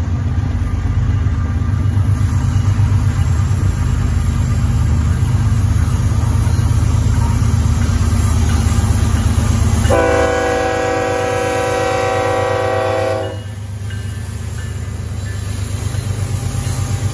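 BNSF freight train's diesel locomotives approaching and passing close by, their engines rumbling low. About ten seconds in the lead locomotive sounds one long horn blast lasting a little over three seconds, which cuts off sharply.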